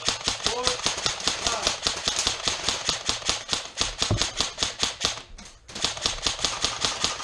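Krytac Trident MK2 CRB airsoft electric rifle firing long full-auto bursts, a rapid rattle of shots with a short break a little past halfway.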